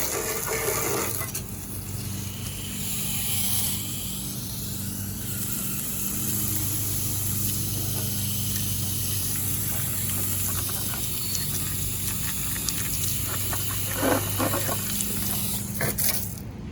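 Gas pressure washer with a Honda GX390 engine running steadily, its wand spraying water across concrete to rinse off soap: a constant engine hum under a steady hiss of spray.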